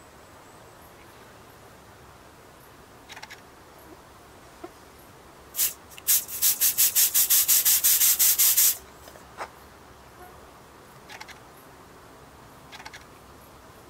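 Aerosol photo-fog spray can: a short hiss about five and a half seconds in, then a longer hiss that pulses about seven times a second for nearly three seconds as fog is sprayed. A few faint clicks before and after.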